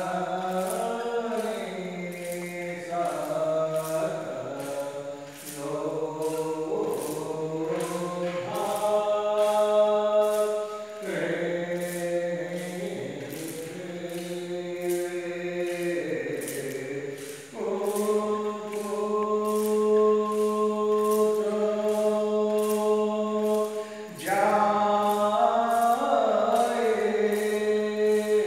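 Voices chanting a Hindu aarti hymn in long, held notes that shift from phrase to phrase, with a light, steady tick about twice a second.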